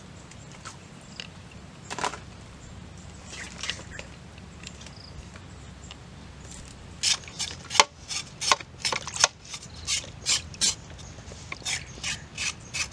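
Sharp, irregular clicks and knocks, several a second from about seven seconds in, as pieces of raw beef and a cow's leg are handled in and against a metal cooking pot. Before that, only a few scattered clicks.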